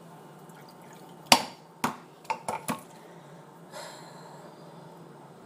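A handful of sharp clinks and knocks of kitchenware handled on a counter, a stainless-steel kettle and a small glass vial among them: the loudest about a second in, then four quicker ones over the next second and a half, and a softer brushing sound near four seconds.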